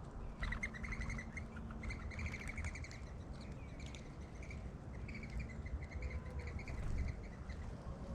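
A bird calling in two bouts of rapid, short, chirping notes, over a steady low rumble.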